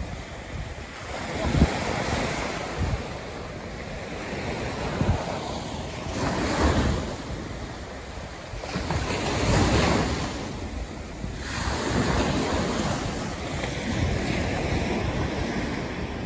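Ocean surf breaking and washing up a sandy beach, the noise swelling and fading in several surges, with wind buffeting the microphone.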